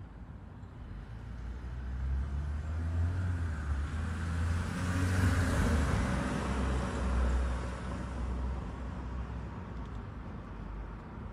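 A road vehicle passing by: an engine rumble and tyre noise that swell up, are loudest near the middle, then fade away.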